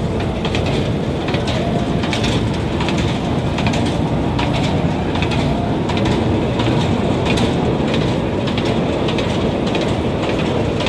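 Carnival spinning ride running at speed, heard from on board: its cars' wheels rumble steadily around the circular track, with sharp clacks recurring roughly every half second as they run over the track joints.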